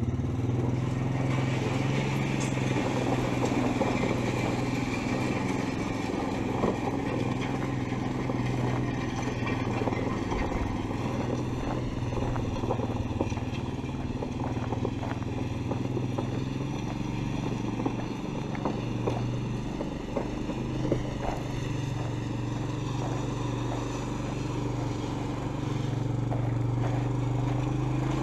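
A small vehicle engine running steadily as it drives over a rough dirt yard, with frequent rattles and clatter over the drone.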